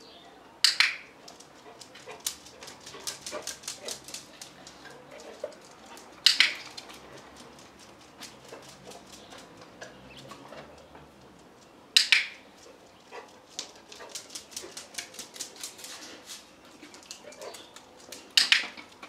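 A dog-training clicker clicks four times, about six seconds apart, marking each time the dog touches the mat or the target stick. Between the clicks comes the light, rapid patter of the dog's feet on brick pavers.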